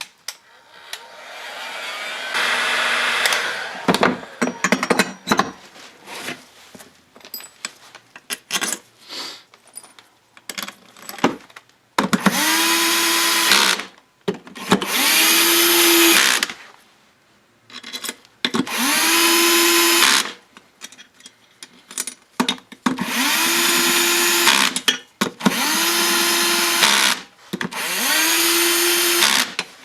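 Cordless screwdriver driving the crankcase bolts of a Honda Dio scooter engine in six short runs, each spinning up and then holding a steady whine. Before the runs come scattered clicks and knocks of parts and bolts being handled.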